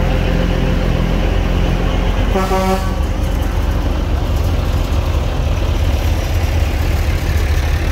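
Tractor engines running steadily, with one short horn toot about two and a half seconds in.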